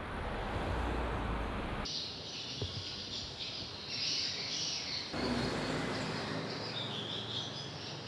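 Many swiftlets chirping, a dense high-pitched twittering that starts abruptly about two seconds in and continues to the end. A low rumble lies under the first two seconds and returns beneath the chirping from about five seconds in.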